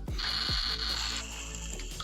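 LEGO Mario interactive figure's small built-in speaker playing its icy sound effect when held over a blue brick: a crackly electronic hiss that shifts lower in pitch a little over a second in.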